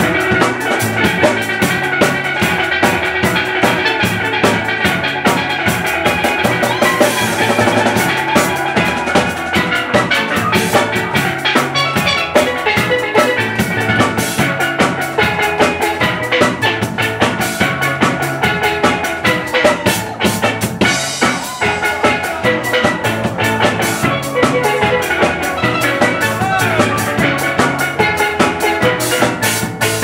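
Live steel band playing: several steel pans carry the tune over a drum kit keeping a steady, driving beat.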